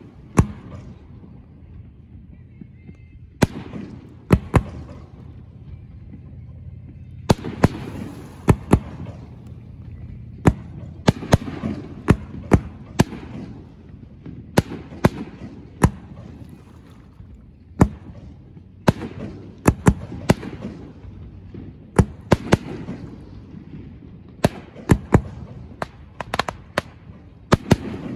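Aerial fireworks shells bursting overhead: sharp bangs at irregular intervals, some in quick pairs or clusters of two or three.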